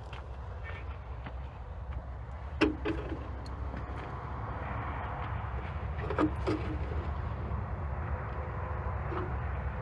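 An engine running steadily, growing a little louder, with a few sharp knocks that ring briefly. The loudest knock comes about two and a half seconds in, and there are pairs of knocks near six seconds and one near nine.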